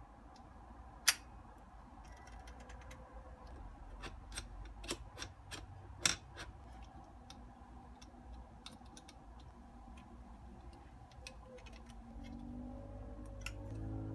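Small metal camera-cage and rod-clamp parts being handled and fitted together: scattered light clicks and knocks, with two sharper clicks about a second in and about six seconds in.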